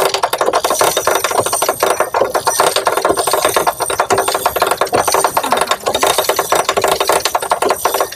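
Rapid metallic rattling and clicking of a Honda Grand engine being turned over by hand to test and prime its oil pump, which is still not delivering oil.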